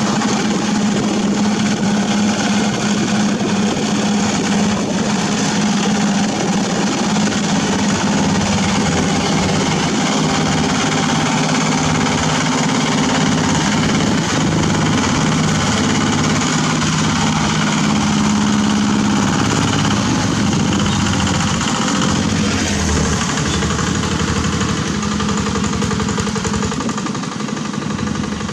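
Single-cylinder diesel engine of a walking tractor running steadily under load, driving its rotary tiller through wet paddy mud.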